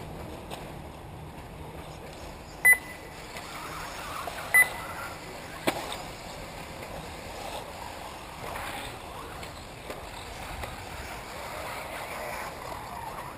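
1/8-scale electric RC buggies running on a dirt track, heard as a steady faint noise. Two short, high electronic beeps about two seconds apart near the start and a sharp click a second later stand out above it.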